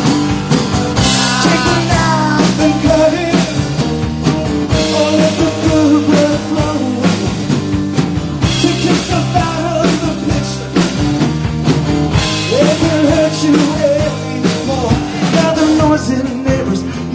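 Live rock band playing a song: acoustic guitar, electric bass and drums with regular drum hits, and a male singing voice at times.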